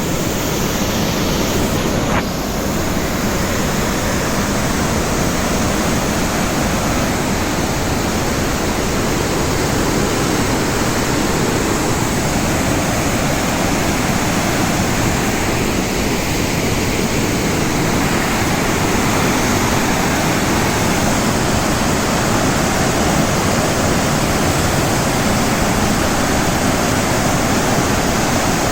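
Waterfall in full monsoon flow, a loud steady rush of falling water. A brief click about two seconds in.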